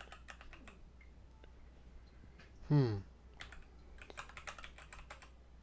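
Computer keyboard typing: quick runs of key clicks as a terminal command is entered. A single short vocal sound with a falling pitch, about three seconds in, is the loudest moment.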